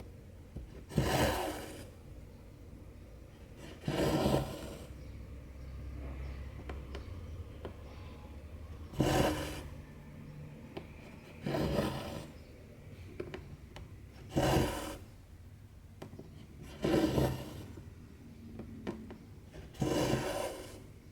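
Two strands of cotton embroidery thread drawn through 14-count cross-stitch canvas, in seven short pulls a few seconds apart.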